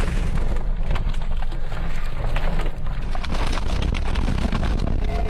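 Tornado wind buffeting a car, heard from inside the cabin as a heavy, steady low rumble, with rain and flying debris pelting the body and windshield in many sharp knocks and clicks.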